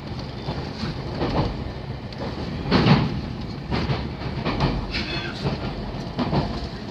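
JR 313 series electric train running, heard from inside the car: a steady rumble with irregular clacks of the wheels over rail joints, the loudest about three seconds in.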